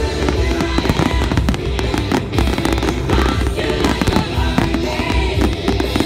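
Aerial firework shells bursting in a rapid, dense barrage of sharp bangs and crackles, over music with a steady low beat.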